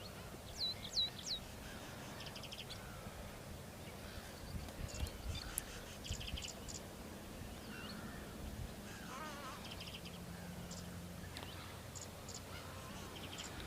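Faint chorus of wild birds calling: quick whistled notes about a second in, then scattered chirps and rapid trills, over a low rumble.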